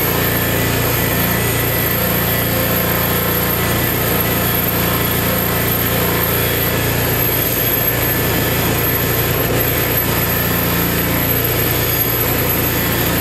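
Belt-driven electric motor spinning a stripping wheel steadily, with a thin metal head-bolt tube held against the wheel to strip off its epoxy coating. Steady hum with a thin high whine.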